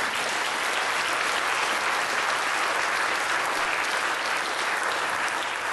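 Audience applauding steadily, a roomful of people clapping.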